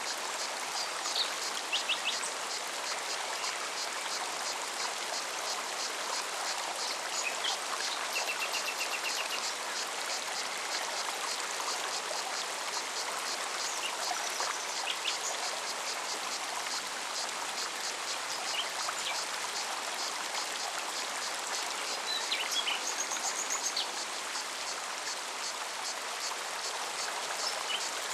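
Forest stream running steadily over rocks, with a few short bird chirps now and then. A cicada's fast, even pulsing sits high above the water through the first half, fading about halfway through.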